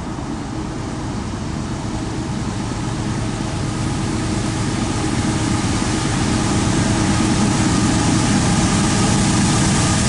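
Norfolk Southern freight train approaching, its lead GE diesel locomotives' engines giving a steady low drone that grows gradually louder, with rising wheel-on-rail noise.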